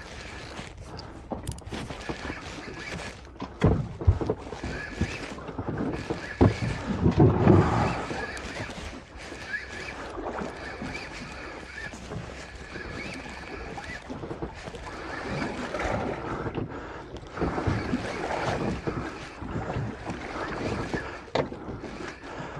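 Small fishing boat drifting on a swell: water sloshing and slapping against the hull, with a few sharp knocks about four seconds in and a louder surge a few seconds later.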